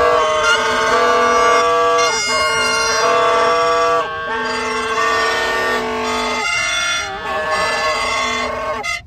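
Several plastic toy trumpets blown together in long, overlapping held notes, the pitches changing every second or two.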